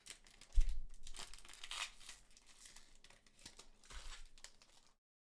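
A foil One Piece Card Game Romance Dawn booster pack being torn open and its wrapper crinkling in the hands, with two soft thumps about half a second in and about four seconds in. The sound stops abruptly near the end.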